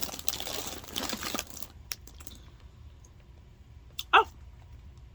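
Blind-box packaging crinkling and crackling as it is handled and opened, a dense rustle for about the first second and a half, then a few light clicks.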